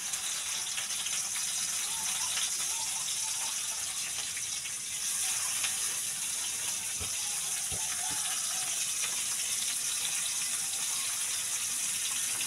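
Tap water running steadily into a sink as food is rinsed, growing louder about five seconds in, with a couple of light knocks.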